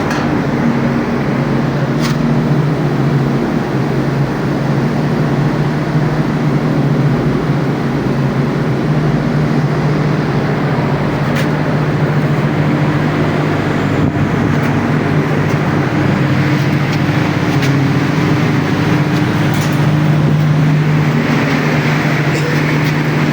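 Scroll compressor of a water-cooled package unit running steadily: a constant low hum with a broad whirring noise over it and a few faint ticks.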